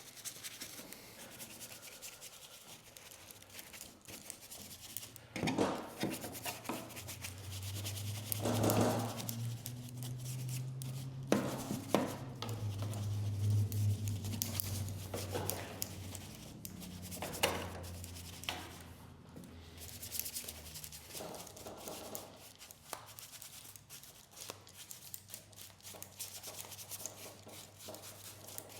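Scrubbing and rubbing on a lawn tractor's body while it is being cleaned, with a few louder brief noises and a low hum that swells in the middle.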